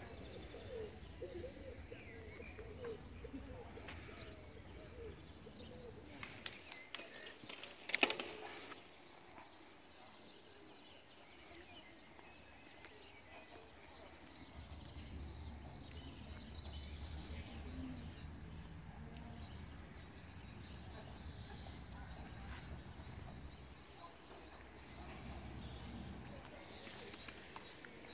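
Quiet outdoor ambience of birds chirping and calling, with one sharp knock about eight seconds in and a low rumble through the second half.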